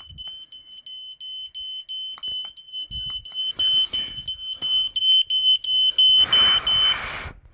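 Optical smoke alarm going off during a smoke test: a high-pitched piezo alarm tone beeping rapidly, with bursts of hissing over it, then cutting off shortly before the end.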